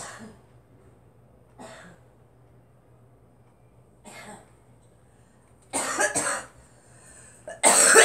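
A girl coughing: two faint coughs, then two loud ones, the last and loudest near the end.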